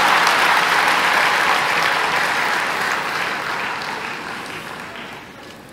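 Audience applauding in a hall, loud at first and dying away steadily over a few seconds.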